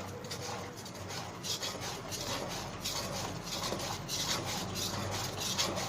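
Dry cake ingredients, flour and cornstarch, being sifted through a kitchen sieve into the batter: a repeated scratchy rubbing of the powder against the mesh.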